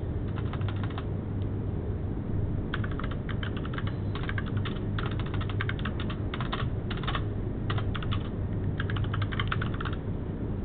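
Typing on a computer keyboard, in several quick runs of keystrokes with short pauses between them.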